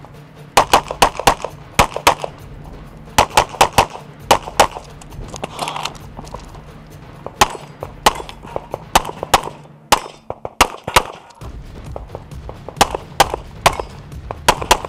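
Rapid fire from a CZ Shadow pistol, shots coming mostly in fast pairs and short strings with brief pauses between them: double taps on successive targets. Shooting stops for a second or two past the middle, then resumes with more quick pairs.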